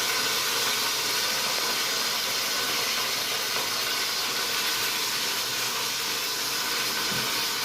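Chicken legs frying in a pan with a steady, even sizzle, the heat just turned down.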